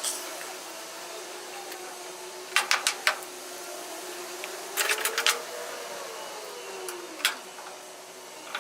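Sharp taps or knocks in quick clusters over a steady hiss: about four a couple of seconds in, about five in the middle, and a single one near the end.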